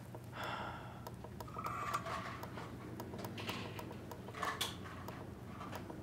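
Quiet handling sounds: a few light clicks and taps as a bare keyboard circuit board is picked up and turned over on a cutting mat, over a low steady hum.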